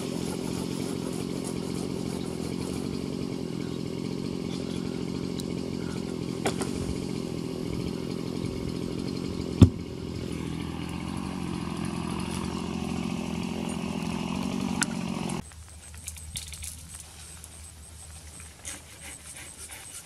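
Chainsaw running steadily during tree removal, then dropping off suddenly about fifteen seconds in, leaving a faint low hum. A single sharp knock comes about halfway through.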